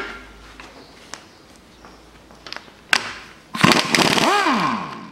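Cordless impact wrench fitted with a 12-point 10 mm socket, loosening a bolt on an engine block's bottom end. A few metal clinks come as the socket is set on, then about three and a half seconds in the wrench runs for about a second and a half, hammering, its motor whine rising and then falling as it winds down.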